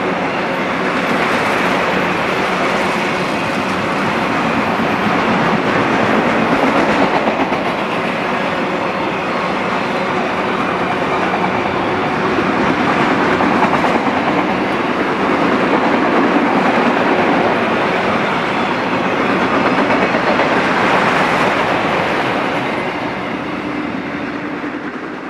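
Autorack freight cars rolling past on steel rails: a steady, loud rush of wheel-on-rail noise that swells and eases a little and tapers off near the end.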